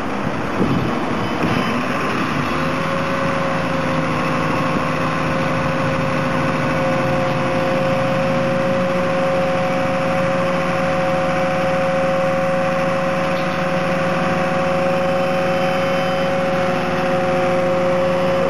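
Fire-engine turntable ladder running, its truck engine driving the hydraulics as the ladder raises and extends the basket. A steady whine sets in about two and a half seconds in and holds.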